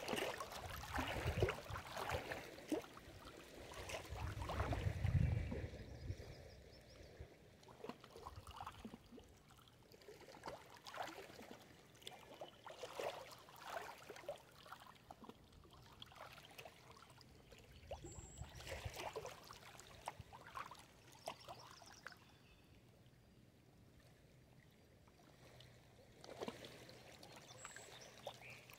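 Small lake waves lapping and splashing against stones and branches at the water's edge, in irregular slaps. The slaps are louder in the first few seconds and softer near the end.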